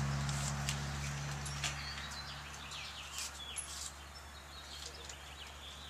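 A vehicle's engine hum fading away over the first two seconds or so, then birds chirping and twittering in short high calls, with a few light clicks.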